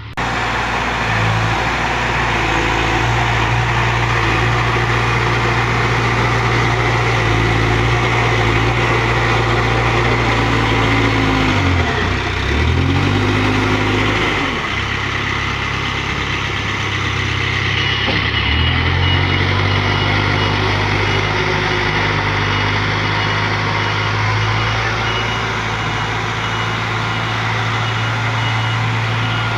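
Diesel engine of a heavy earthmoving machine running steadily, its pitch dipping and recovering twice as it comes under load. Over the later part, a high alarm beeps at an even rhythm.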